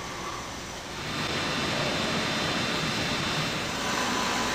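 A man snoring in his sleep: a long, fluttering snore that starts about a second in and carries on over a hissy room recording.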